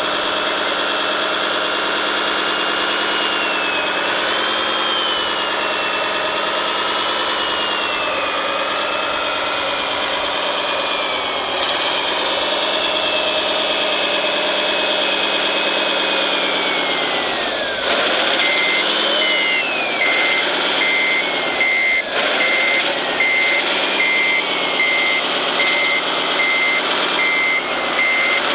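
Engine sound of a 1/14-scale RC construction vehicle, its pitch rising and falling as it works. About two-thirds of the way in it gets louder and a reversing beeper starts, beeping about once a second.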